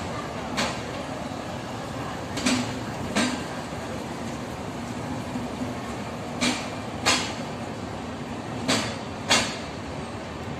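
Passenger train coaches rolling past over a steady rumble, their wheels clacking over a rail joint in pairs of sharp knocks about half a second apart, one pair every two to four seconds.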